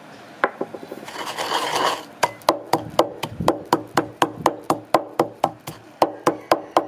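A wooden pestle working dry granules in a wooden mortar: a rough grinding, scraping stretch about a second in, then steady knocking, about four strikes a second.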